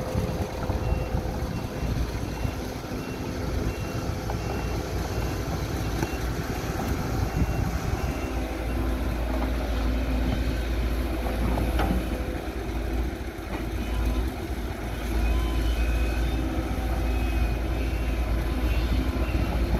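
Heavy construction machine's engine running steadily with a deep rumble, and a warning beeper sounding a steady series of short high beeps from about two seconds in.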